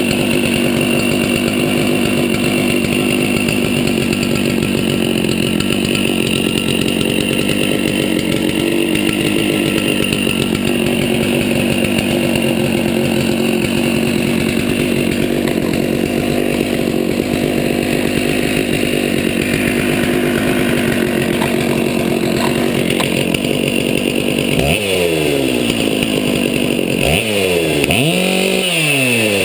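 Stihl 046 Magnum two-stroke chainsaw running at a steady speed, then revved up and down several times near the end, the pitch rising and falling with each blip of the throttle.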